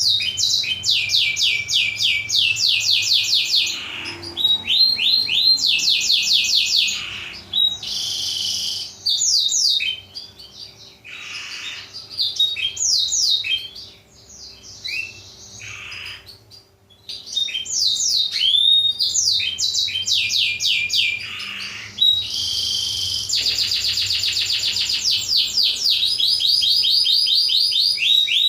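Black-throated canary (blackthroat) singing: fast high trills of repeated downward-sweeping notes in phrases broken by short pauses, with a quieter, sparser stretch in the middle.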